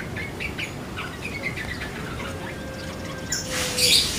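Small birds chirping: a run of short, high chirps, thinning out after about two seconds. Near the end comes a brief, louder rustling noise.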